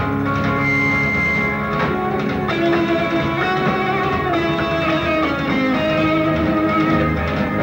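Band music with guitar to the fore, playing a steady melodic passage.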